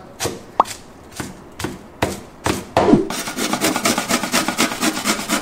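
Garlic cloves being grated on a metal box grater: rasping scrape strokes, a few separate ones at first, then quick and steady from about halfway.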